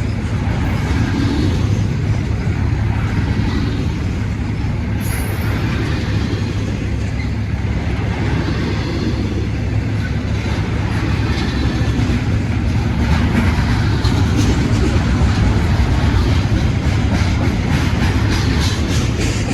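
Freight train rolling past: a steady rumble of steel wheels on the rails, with faint, quick clicks over the rail joints in the second half.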